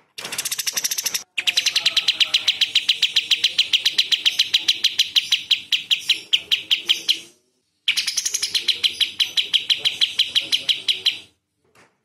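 Kapas tembak bulbul singing its rapid-fire 'tembakan' song: long runs of sharp notes repeated fast, about eight a second. The runs are broken by a short pause about seven seconds in and end just before the close.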